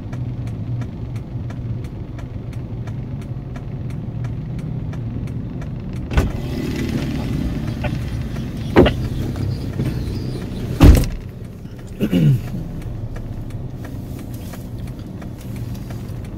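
Vehicle engine idling with a steady low hum and a faint regular ticking about three times a second, broken by three sharp knocks about six, nine and eleven seconds in and a short falling tone just after the last one.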